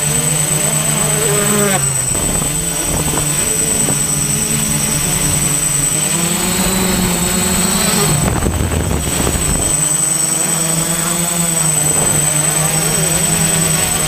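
Multirotor camera drone's motors and propellers running steadily with a constant high whine. Motocross bikes rise and fall in pitch underneath as they rev.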